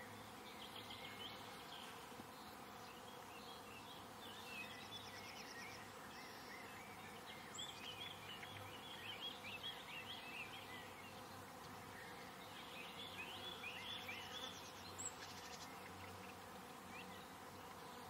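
Faint garden ambience: an insect buzzing steadily, with small birds twittering in short chirps. The chirps are busiest around the middle and again near the end.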